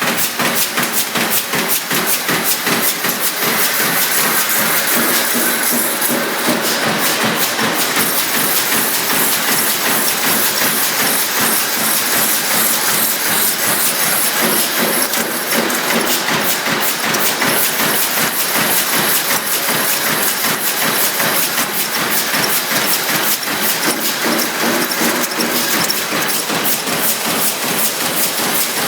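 CNC sheet-feed press line running: a fast, continuous clatter of repeated press strokes with a high hiss over it.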